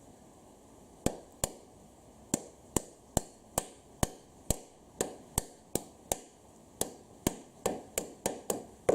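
A series of sharp taps or knocks, about two to three a second at uneven spacing, starting about a second in and coming a little quicker near the end, with the loudest right at the end.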